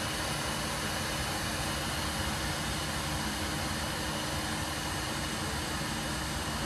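Steady fan and blower noise, a constant airy hiss with a faint hum under it.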